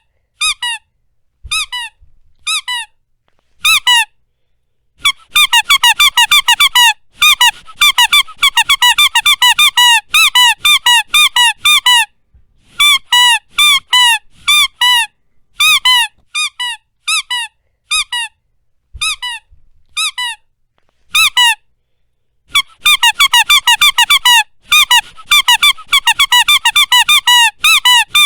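Dog's squeaker toy squeezed repeatedly, giving short, high squeaks. They come singly at first, then in fast runs of several a second, broken by a few brief pauses.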